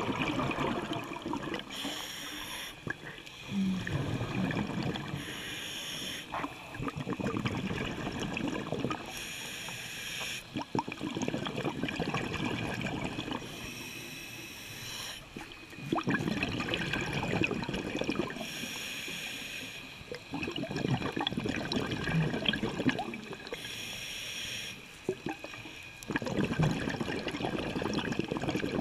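Scuba diver breathing through a regulator underwater. Each breath is a short hiss on the inhale, followed by a longer burble of exhaust bubbles, about six breaths in slow, even rhythm.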